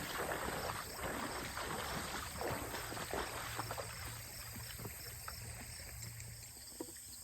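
Shallow creek water splashing and sloshing irregularly as something is worked in it, busiest in the first four seconds and then dying down.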